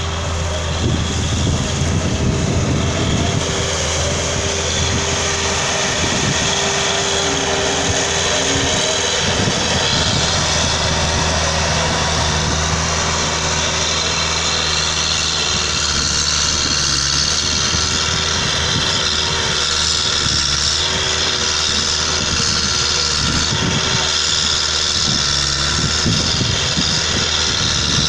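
Bell SC-800 sugarcane loader's engine running steadily as the machine drives with a load of cane and then raises its boom to drop the cane onto a truck. A steady whine rides on the engine sound and dips several times in the second half.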